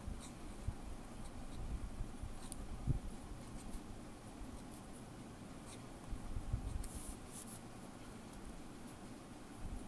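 Noodler's Ahab flex-nib fountain pen scratching lightly across notebook paper as cursive letters are written, with a few sharper nib scratches and occasional low bumps.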